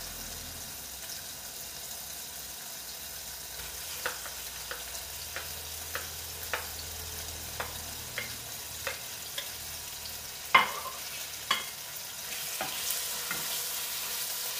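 Sliced onion sizzling as it starts to fry in hot oil in a stainless steel pot, a steady hiss throughout. Over it, a wooden spoon clicks and knocks against the plate and pot a dozen or so times, loudest about ten and a half seconds in.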